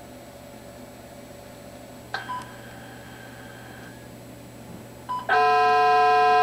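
Electronic tones from a radio data link passing a digital image: a short beep about two seconds in, then another brief beep and, about five seconds in, a loud, steady tone of many pitches at once.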